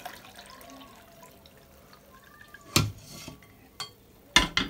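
Last drips of strained sorrel liquid falling through a mesh strainer into a bowl, then a few sharp metal clanks, one a little under three seconds in and a quick cluster near the end, as the emptied stainless steel pot is put down on the gas hob.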